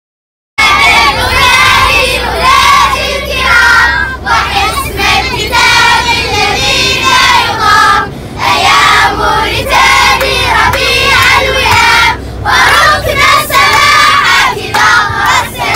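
A busload of children singing and chanting together loudly, starting suddenly about half a second in, over a steady low drone of the minibus engine that fades out near the end.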